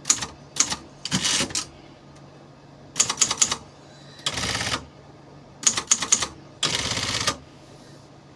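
Silver Reed 750 typewriter being typed on: quick runs of sharp key strikes in short bursts, with two longer stretches of a steady mechanical whir, about four and a half and seven seconds in.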